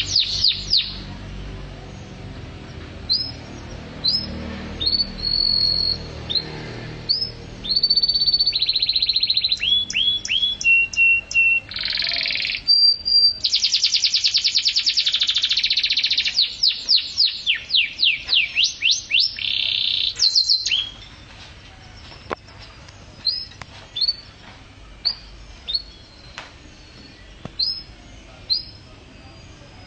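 Songbird singing: rapid runs of high, downward-sweeping notes and buzzy trills, with some held whistled notes. The song breaks off about 21 seconds in, after which there are only occasional single chirps.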